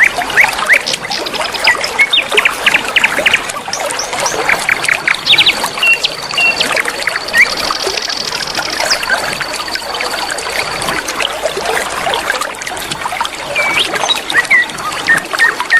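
Many small songbirds chirping and whistling in quick, overlapping calls over the steady trickle and rush of flowing river water, with one long high trill held through the middle.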